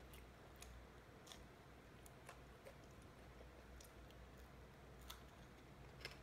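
Faint eating sounds: a man chewing, with a few scattered light clicks of a fork and plate.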